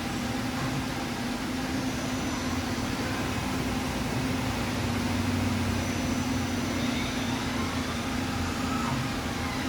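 Steady mechanical hum of running shop machinery: one constant low tone over an even noise, with no distinct strikes or changes.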